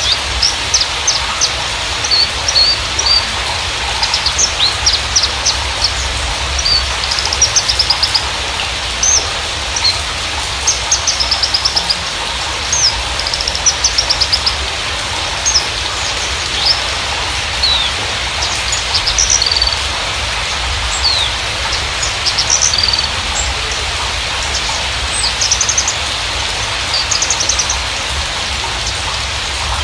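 Javan bushlark (Mirafra javanica parva) song: a continuous run of quick high chirps and short rapid trills, played as a lure to stimulate a captive bushlark to sing. Under it is a steady hiss.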